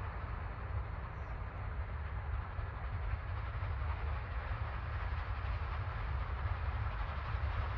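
Steam locomotive approaching from a distance under steam, its sound slowly growing louder over a steady low rumble.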